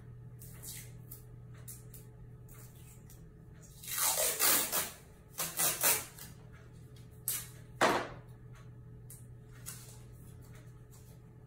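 Steam-sterilization indicator tape being pulled off its roll in a few quick rips, about four seconds in and again around six, then a short sharp rip near eight seconds, over a steady low hum.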